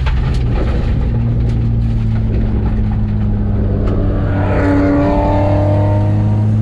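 BMW E30 track car's engine heard from inside the cabin, running at a steady speed with an even drone. About four seconds in, a higher whine comes in, falling in pitch and then levelling off.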